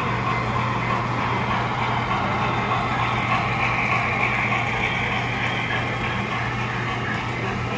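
Model freight train rolling past on the track: a steady, dense clatter of small wheels on rail that swells about halfway through as the cars pass closest, over a constant low hum.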